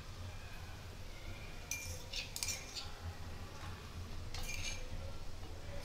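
Three short metallic clinks of steel kitchenware, each with a brief ring, over a faint steady low hum.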